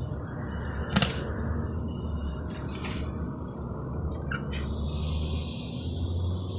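Refrigerator compressor running with a steady low hum and hiss. A sharp click comes about a second in, and a couple of fainter ticks follow later.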